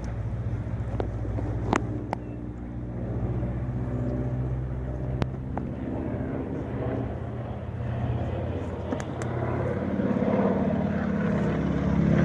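A steady low hum that swells near the end, with a few sharp clicks or knocks.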